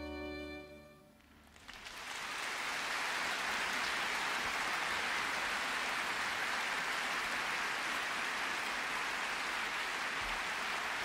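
A violin's last held note, over soft orchestral strings, fades away within the first second. About two seconds in, a large concert audience breaks into steady applause.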